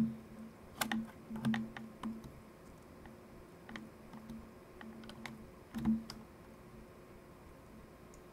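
Multimeter test probe tips clicking and scraping against the batteries in a Nikon One Touch camera's battery compartment: scattered light clicks, with a sharper one about six seconds in.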